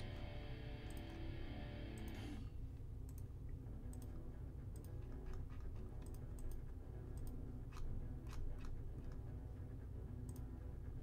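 Background music for about the first two seconds, then stops. After that, scattered irregular clicks of a computer mouse and keyboard over a steady low hum.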